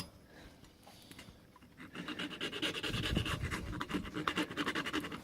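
Hand file rasping across the cuts of an MS2 key blank in quick, repeated strokes, starting about two seconds in after a faint scrape; the file is taking down the spot where the lock's pin left an impression mark.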